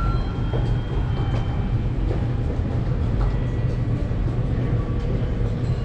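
Steady low rumble of busy railway-station ambience, with a short electronic beep right at the start.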